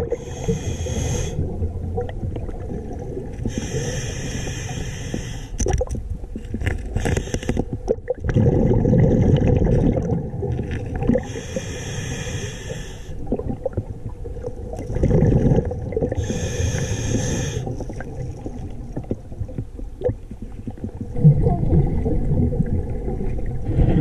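Scuba diver's regulator breathing heard underwater: four hissing inhalations through the demand valve, each followed by a low, rumbling gush of exhaled bubbles.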